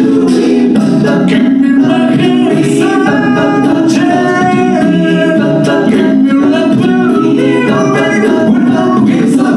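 A cappella group singing a song in several-part vocal harmony, loud and continuous, over a steady beat.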